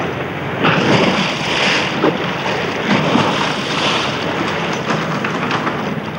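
Sea water rushing and splashing with wind noise, as mines are dropped over a ship's side into the sea; the splashing swells suddenly about a second in and surges again near four seconds.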